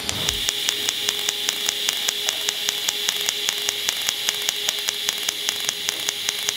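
Pulsed TIG welding arc on steel, with filler wire fed continuously into the pool by a MIG/MAG wire feeder. It is a steady hiss with a fast, even ticking, several ticks a second.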